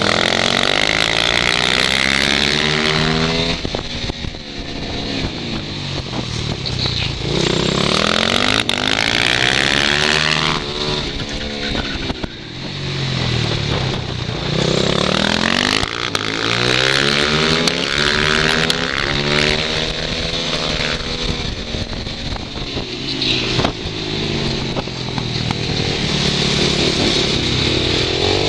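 Supermoto motorcycle engines heard from onboard, revving hard and then dropping back, over and over, as the bikes accelerate out of and brake into a run of tight corners. The pitch climbs and falls again every few seconds.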